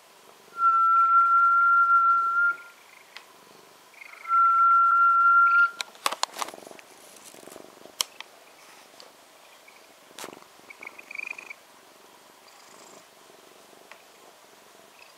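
A person whistles two long, steady notes at one pitch while a black cat purrs close to the microphone. After the second note come a few sharp knocks and rustles as the cat rubs against the camera.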